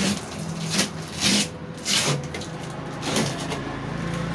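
A new Haier visi cooler, a glass-door display fridge, being handled: its doors and fittings make about five short scrapes and knocks over some three seconds.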